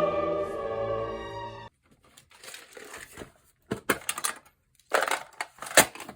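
Choral music that cuts off abruptly about a second and a half in. It is followed by typing on a mechanical keyboard with Cherry MX Brown switches: scattered clusters of sharp keystroke clacks with short pauses between them.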